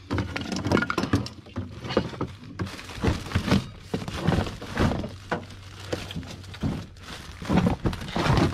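Rummaging through a pile of household junk by hand: irregular knocks, thunks and scrapes as wooden and plastic parts are shifted and pulled about.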